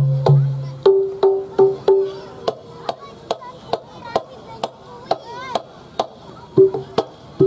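Live Javanese band music in an instrumental passage without singing. Sharp percussion clicks keep a steady beat throughout. Repeated pitched notes are strong at the start, thin out in the middle and come back near the end.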